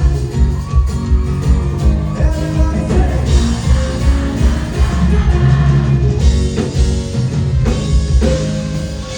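Live rock band playing loudly, with pounding kick drum and bass, electric guitars and held melodic lines; the sound thins out near the end.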